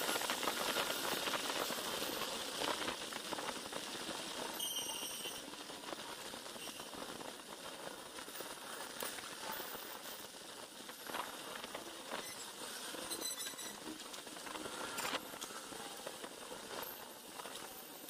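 Small clicks and scrapes of a screwdriver undoing the screws of a scooter's plastic air filter cover and of the cover being worked loose by hand. They come scattered and faint over a steady background hiss.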